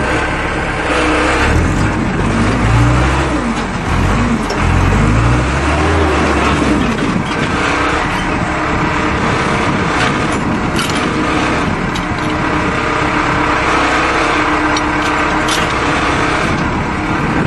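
Engine of the lifting machine holding the flange running, its pitch rising and falling over the first six seconds or so, then settling to a steady run.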